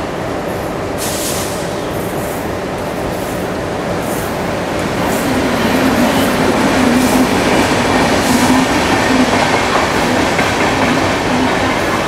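Indian Railways WAP-7 electric locomotive passing close by with its train: wheels clattering over the rails with scattered clicks. A steady low hum comes in about halfway through as the train draws level and grows louder.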